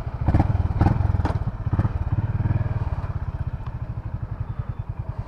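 Honda CB350RS's single-cylinder engine and exhaust idling with an even, rapid pulsing beat. A few stronger pulses come in the first two seconds, then it settles to a steady idle.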